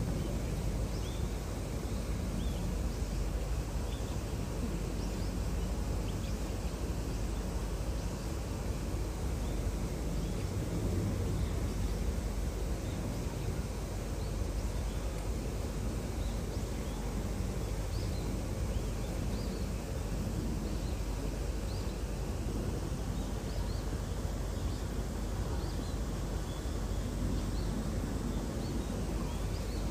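Steady outdoor background noise with a low rumble, with faint, brief high chirps scattered through it.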